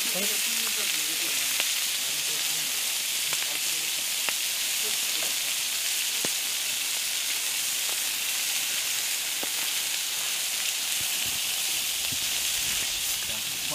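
Adana kebab patties sizzling steadily as they fry in a pan over a campfire, with a few sharp clicks of a metal utensil against the pan as they are turned.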